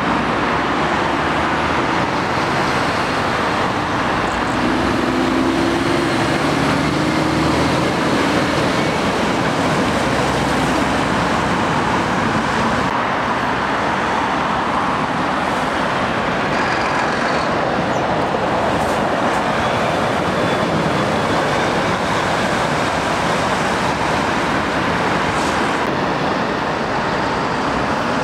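Road traffic passing steadily: heavy lorries and cars, engines and tyre noise blending into one constant noise, with a lorry engine's drone standing out about five seconds in.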